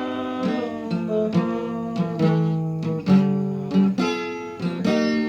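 Acoustic guitar strummed in a steady rhythm, its chords changing every second or so.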